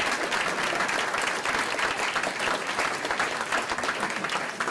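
A room full of people applauding, dense steady hand clapping.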